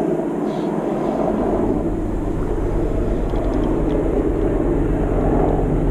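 Steady low rumble of distant engine noise.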